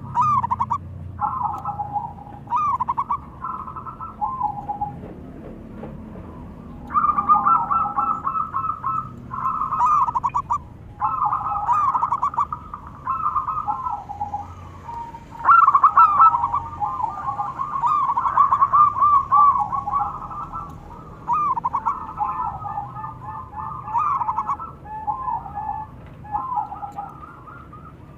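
Zebra doves (perkutut) cooing back and forth, phrase after phrase of quick rippling coos that overlap one another at times.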